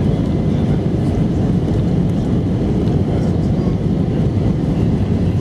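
Steady low rumble of airliner cabin noise heard from a window seat of an easyJet Airbus A320-family jet on approach: jet engines and airflow over the fuselage.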